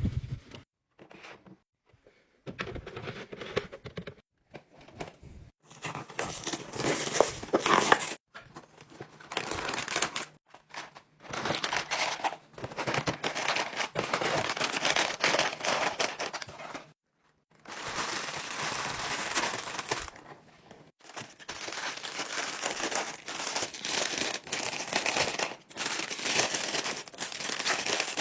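Plastic packaging crinkling and rustling as it is handled, in stretches of a few seconds broken by short pauses.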